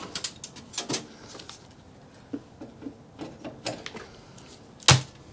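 Scattered light clicks and taps of metal parts being handled on a server chassis, with one louder sharp knock near the end.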